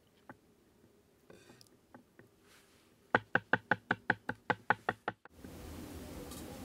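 Knife chopping on a wooden cutting board: a quick, even run of about a dozen strikes, roughly seven a second, starting about three seconds in. The strikes stop about five seconds in, and a steady hiss takes over.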